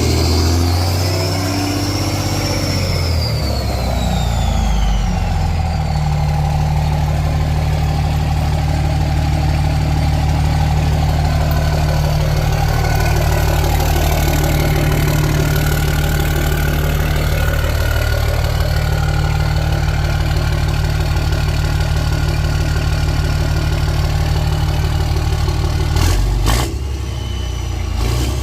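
5.9 Cummins turbo-diesel through a 5-inch stainless steel exhaust. Engine speed drops over the first few seconds while a high whistle falls away, then the engine runs at a steady low drone. The sound changes abruptly near the end with a few sharp clicks.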